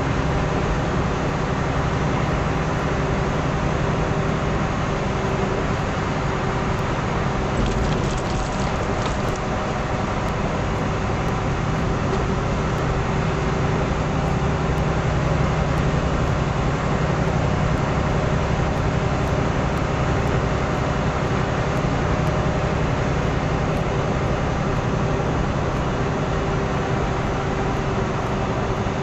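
Steady drone of a truck's engine and road noise heard from inside the cab while driving, with an even low hum throughout.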